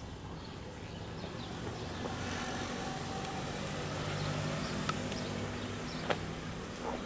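A vehicle engine running steadily, its low hum swelling slightly in the middle, with two sharp clicks near the end.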